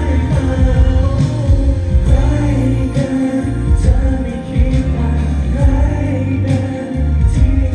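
Live pop music with singing over a strong bass beat, played over a concert sound system during a sound check.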